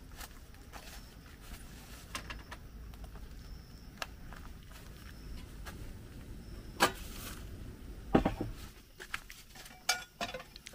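Scattered clicks and knocks of cooking gear being handled, pots and stove parts set down and moved, over a low rumble. The sharpest click comes about two-thirds of the way in, with a few more knocks near the end.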